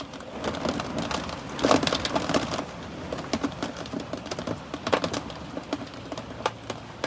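Fifth-wheel RV trailer creaking and rattling as an extreme wind storm buffets it: irregular clicks, cracks and knocks from the trailer's body and fittings over a steady rush of wind.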